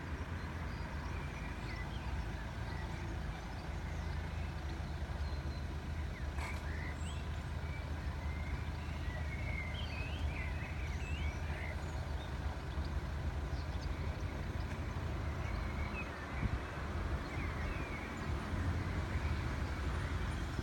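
Steady low rumble of outdoor background sound at a railway level crossing, with faint short high chirps scattered through it.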